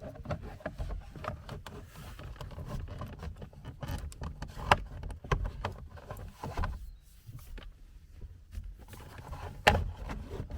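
Light clicks and taps of a tool and plastic parts as two screws are driven back into a car steering wheel assembly, with two sharper clicks, one about halfway through and one near the end.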